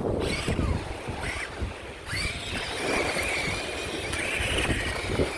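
Small electric motor of a Monster Jam Megalodon RC truck whining and wavering in pitch as it drives through water, over a rushing, churning water noise.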